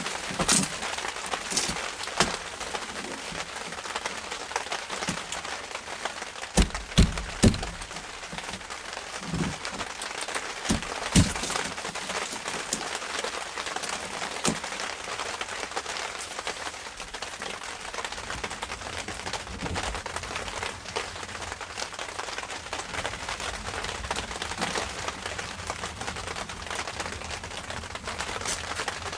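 Steady rain falling on a canopy, with a few sharp knocks: three close together about seven seconds in and one more a few seconds later.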